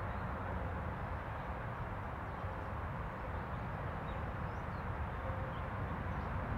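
Steady outdoor background: a low rumble with a few faint high bird chirps.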